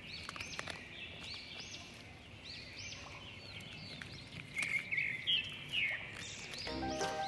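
Birds chirping faintly in a string of short, repeated calls. Music comes in near the end.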